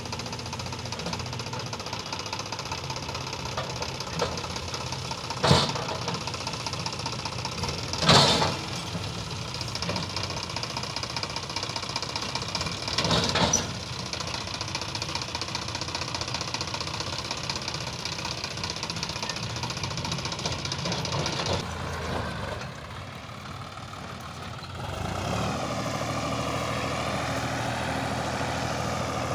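Sonalika tractor diesel engine running steadily at idle while its hydraulic tipping trolley is raised, broken by three short loud bursts in the first half. Near the end the sound dips, then a second tractor engine runs on at a steady note.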